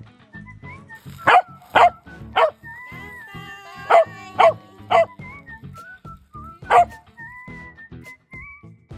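A dog barking seven times: two runs of three quick barks and a single bark near the end, over background music with a whistled melody and a steady beat.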